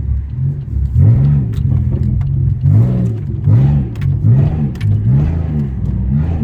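Tuned Pontiac Grand Prix GT's 3.8-litre V6 through a catless exhaust, revved in a quick series of short throttle blips, each rising and falling back toward idle.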